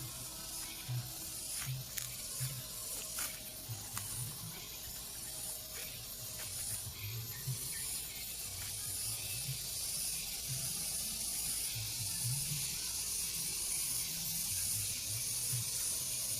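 Steady high-pitched hiss of outdoor rice-paddy ambience, with scattered sharp clicks in the first few seconds and soft irregular low thumps throughout.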